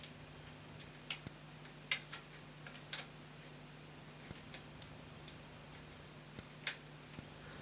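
Scattered light clicks and taps of small parts being handled as a wheel is worked onto the front axle of a 3D-printed plastic locomotive chassis, over a faint steady hum.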